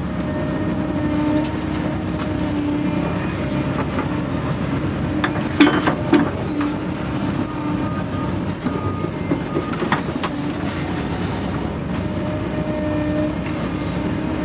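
Doosan excavator's diesel engine and hydraulics running steadily, heard from inside the cab, with a whine that comes and goes as the boom and bucket work wet ditch muck. A couple of sharp knocks about six seconds in.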